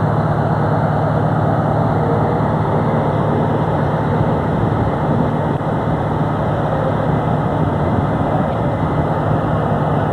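A fire engine's motor running steadily at close range: an even, unbroken rumble.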